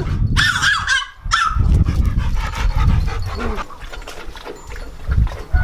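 A dog whining with high, wavering cries in the first second or so, then mostly heavy low rumbling noise on the microphone.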